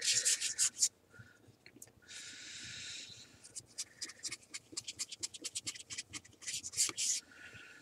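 A cloth rubbing briskly over the plastic polarizer film on a multimeter's LCD, in quick back-and-forth wiping strokes. There is a short pause about a second in, a smoother steady rub around two to three seconds in, then more quick strokes that stop near the end.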